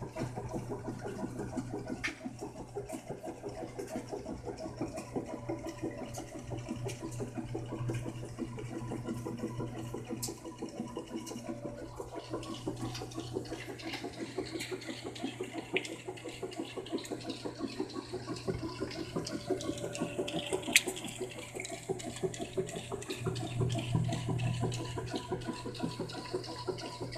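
Whirlpool top-load washing machine running, with a steady motor hum under continuous rushing and sloshing water.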